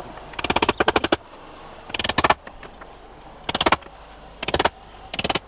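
A hammer tapping wooden pegs into holes in a log, in short, quick bursts of several sharp knocks with pauses between them.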